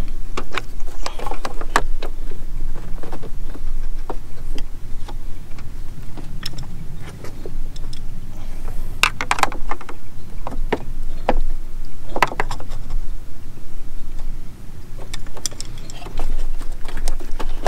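Scattered clicks, knocks and small rattles of a BMW N54's plastic coolant-hose quick-connect fitting being pried and worked loose by hand, over a steady low rumble.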